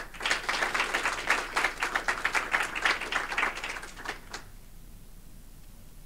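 Audience applauding, a dense patter of claps that dies away about four seconds in.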